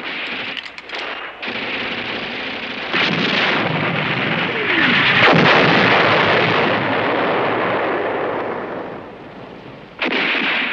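Artillery gun firing and its shell exploding. Sharp reports come in the first seconds, then a long blast that builds to its loudest about five seconds in and slowly dies away. A fresh burst of gunfire comes suddenly near the end.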